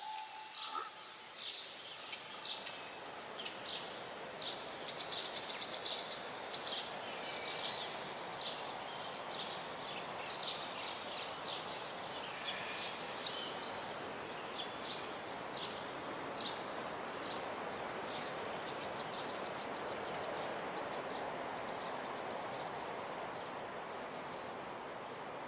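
Birds chirping over a steady wash of noise, with a quick rattling trill about five seconds in; the chirps thin out past the middle, leaving mostly the steady wash.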